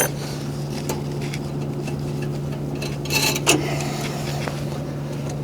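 Metal tools clinking and scraping against the fuel line fitting on the oil burner's pump as the line is taken off, with a cluster of sharp clinks about three seconds in. A steady low hum runs underneath.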